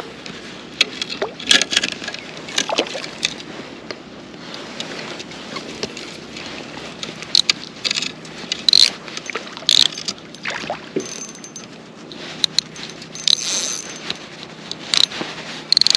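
Irregular splashes, knocks and clicks of water and fishing gear around a kayak while a hooked trout is fought and reeled in close to the boat.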